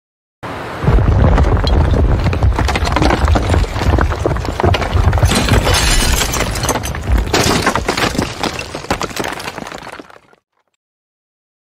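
Building-collapse sound effect: a deep rumble under crashing, cracking and shattering debris, starting about half a second in, surging twice midway and tapering off near the end.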